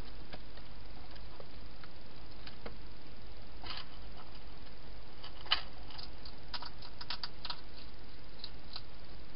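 A hedgehog eating from a bowl inside a plastic feeding station: scattered crisp clicks and crunches, a cluster starting about four seconds in and the sharpest click about halfway, over a steady low hum and hiss.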